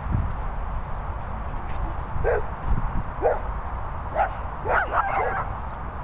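Dogs barking: single barks about two, three and four seconds in, then a quick run of three near the end.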